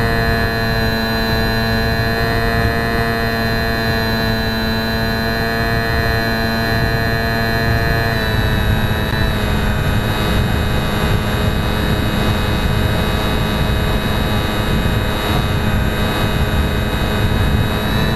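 HobbyZone Champ micro RC plane's small electric motor and propeller whining steadily, heard loud and close from a camera on board, over a rushing noise. The pitch wavers briefly about eight seconds in, then settles again.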